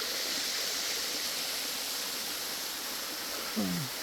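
A 120-foot waterfall at low, dry-season flow, its falling water making a steady, even hiss.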